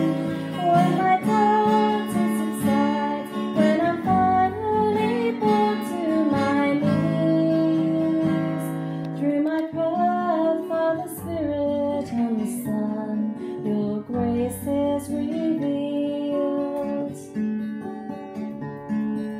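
Acoustic guitar music, with plucked and strummed notes.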